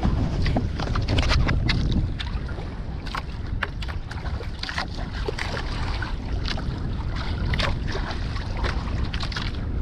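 Wind buffeting the microphone over choppy sea, heaviest in the first two seconds, with irregular slaps and splashes of waves against a small outrigger boat's hull.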